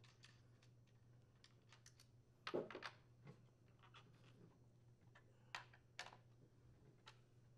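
Faint metallic clicks and taps of the chainsaw's socket wrench and loose clutch cover nuts as the nuts are unthreaded. The loudest click comes about two and a half seconds in, with a few lighter ones near the end.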